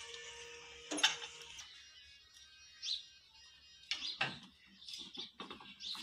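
A single knock about a second in. From about four seconds in, irregular crunching and scuffing as a tractor wheel with its tyre is rolled by hand over dry dirt, with footsteps.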